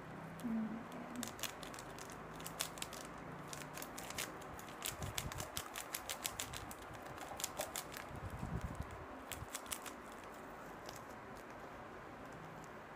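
Soft, quick, irregular clicks and taps of a small plastic packet being shaken and tapped against a small plastic cup to get powdered food colouring out, with a couple of dull handling bumps in the middle.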